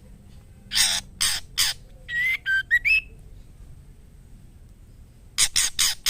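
Female white-rumped shama calling to a male in breeding condition: three harsh, raspy notes, then a quick run of short whistled notes sliding up and down, and near the end four more harsh raspy notes.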